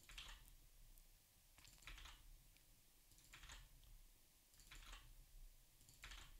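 Faint computer keyboard typing in short bursts, about every second and a half: a word being retyped at a time.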